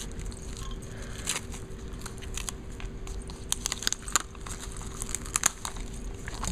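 Clear plastic packaging sleeve crinkling and crackling as it is picked open and pulled off a pack of papers by hand, in irregular sharp crackles that come thickest after the middle.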